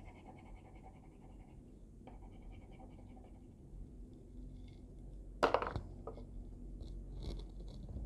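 Wax crayon scratching faintly across paper as an area is coloured in, with one sharp knock about five and a half seconds in.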